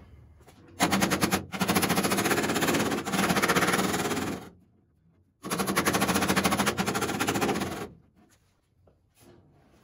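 Rapid metal hammering on the steel door sill: two long runs of quick, machine-gun-like strikes, about three and a half seconds and then two and a half seconds, with a short pause between.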